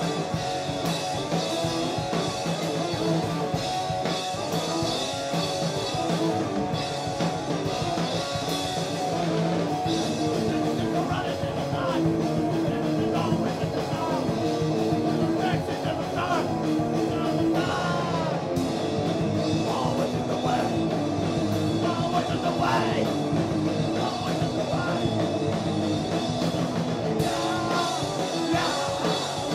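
Live heavy rock from a two-piece band: distorted electric guitar over a drum kit with cymbals, played loud and without a break.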